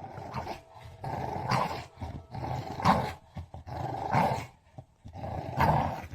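A dog growling in a run of repeated growls, one about every second and a half.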